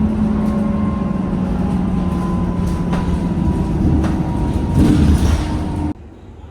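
Steady rumble and hum of a moving vehicle, with a few light clicks, cutting off suddenly near the end.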